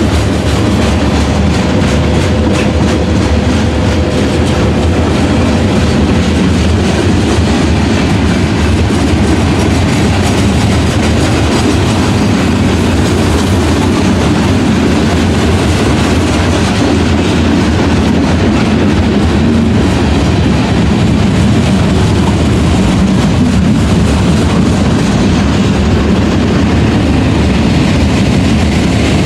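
Freight train cars rolling past at steady speed, their steel wheels clacking and rumbling on the rails.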